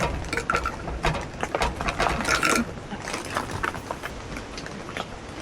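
Rapid, irregular clicks and knocks, like small hard objects being handled. They are busiest in the first two and a half seconds and then thin out.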